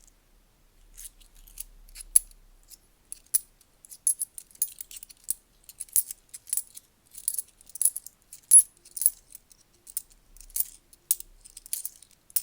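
10p coins clinking against one another as they are sorted by hand: a quick, irregular run of light metallic clicks and taps.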